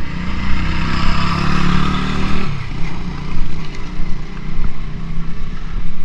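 Motor vehicle engine running at a steady low drone, with road noise. For the first two and a half seconds a louder hiss with a falling tone rides over it.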